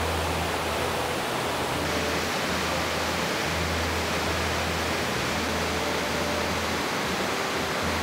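A broad waterfall rushing over a rock ledge into the stream below, a steady, even rush of falling water.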